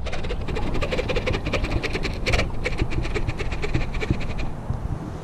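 Baitcasting reel clicking rapidly while a hooked fish is played, a fast run of sharp clicks that stops about four and a half seconds in.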